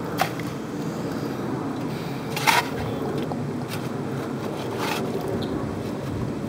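Shovel scraping and digging into wet dirt and stones a few times, the loudest stroke about two and a half seconds in, over a steady background rush.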